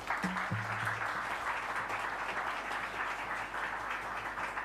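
Audience applauding, a dense steady clapping of many hands at the close of a talk.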